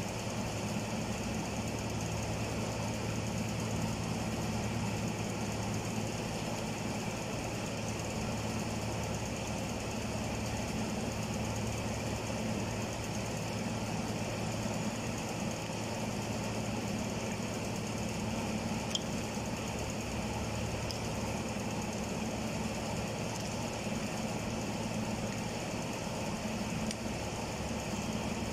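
Steady low machine hum with an even hiss behind it, unchanging throughout, with one faint light click about two-thirds of the way through.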